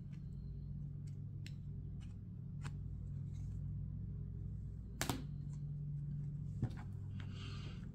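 Light, scattered clicks and taps of rigid plastic card top loaders being handled and set on a table, the sharpest about five seconds in, over a steady low hum.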